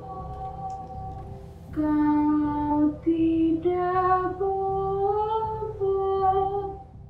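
A woman's voice singing a slow, lullaby-like melody in long held notes, over a steady low hum. The singing grows louder about two seconds in and cuts off abruptly at the end.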